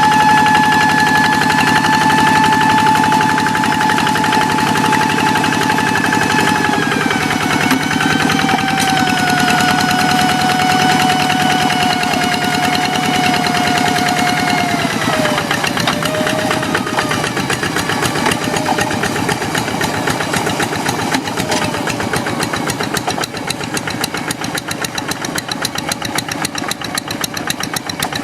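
Kubota diesel engine of a hand tractor running with a rapid, even putter and a high whine over it. The whine steps down in pitch about a quarter of the way in and again about halfway, then fades.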